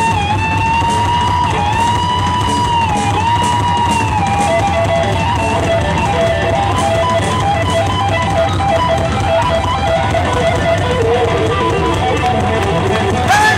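Electric guitar solo over bass and drums in a live rock band. One long sustained high note, bent and shaken with vibrato, runs through the first few seconds. It then gives way to quicker runs of shorter notes moving lower.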